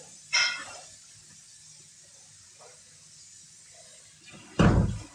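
Two short knocks in a small room: a sharp, bright clack under half a second in, then a louder, deeper thud near the end, over faint room tone.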